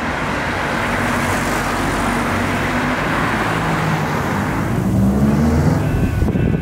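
Town street traffic: cars and vans running past in a steady stream, with low engine hum, growing a little louder about five seconds in.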